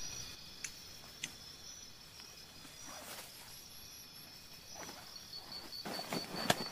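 A backpack being handled in dry grass, with rustling and a few sharp clicks, the loudest near the end. Behind it an insect chirps steadily, a high, evenly pulsing call.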